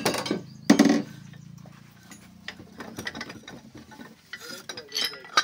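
Ratchet handle clicking as it turns the screw of a cylinder-liner puller, drawing a liner out of the engine block. There are sharp metal clanks near the start and about a second in, then a run of small clicks, with another clank near the end.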